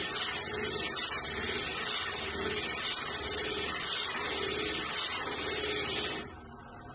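Glass being ground on a spinning, water-fed flat lap grinding pad: a steady hiss of wet grinding that cuts off abruptly about six seconds in.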